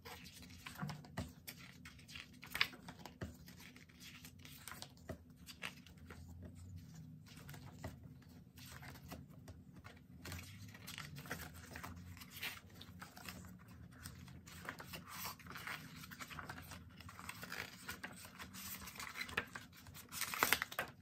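Pages of a glossy photo book being turned by hand, with a run of soft paper rustles and flaps, louder just before the end.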